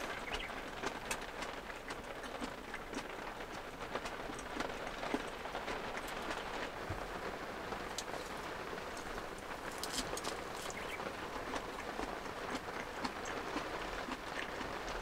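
Heavy rain falling on a light truck camper, heard from inside: a steady hiss dotted with many sharp ticks of single drops striking the shell and window.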